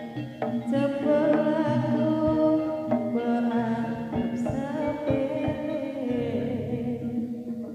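Live Javanese jaranan (kuda lumping) gamelan music: a singer's voice over sustained pitched tones and sharp drum strokes, through the show's sound system.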